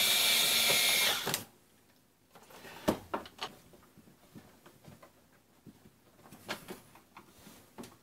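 Cordless electric screwdriver whirring with a steady whine as it backs a screw out of a plastic mini-fridge casing, stopping a little over a second in. Afterwards a sharp knock and scattered light taps and clicks as the plastic back panel is handled.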